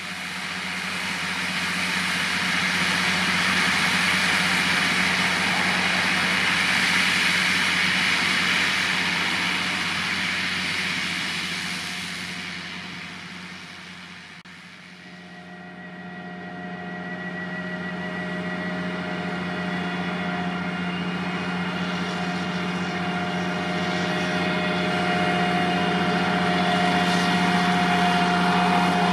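Vredo VT3306 self-propelled slurry injector working the field, engine and machinery running. It is loud at first, fades to its quietest about halfway through as it moves off, then grows louder again with a steady engine hum and a higher whine as it comes back.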